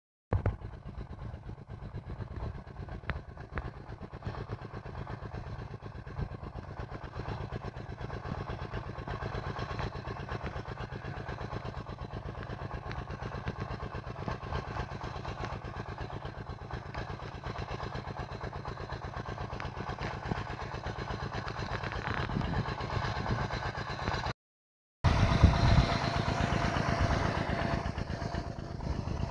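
Nodolini S45 turbine rain gun throwing a water jet across a field: a steady rushing, low running noise. It drops out for under a second near the end and comes back louder, close to the falling spray, with a steady hum.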